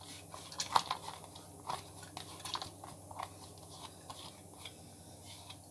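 Soaked moong dal dropping from a bowl into a pressure cooker. Faint, irregular small clicks and wet patters as the last lentils are scraped out by hand.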